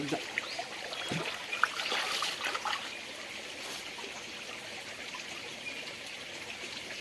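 Shallow forest stream trickling, with a few faint splashes from hands groping along the muddy bottom in the first few seconds.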